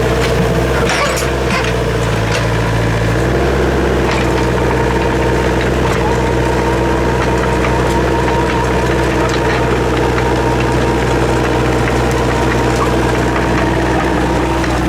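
Excavator's diesel engine running steadily, its low hum shifting slightly about three seconds in, with a few sharp knocks around one to two seconds in.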